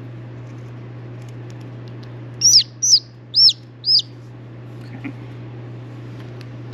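A baby chicken chick peeping four times in quick succession, each peep a high note that rises and falls, about half a second apart, over a steady low hum.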